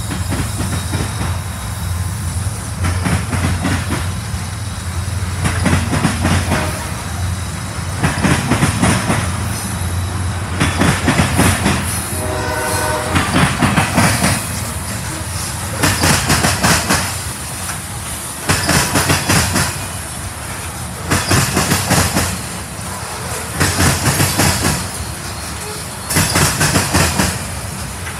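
Freight train passing: a diesel locomotive's engine drones in the first few seconds, then covered hopper cars roll by, their wheels clacking over the rail joints in loud bursts about every two and a half seconds. A train horn sounds briefly about twelve seconds in.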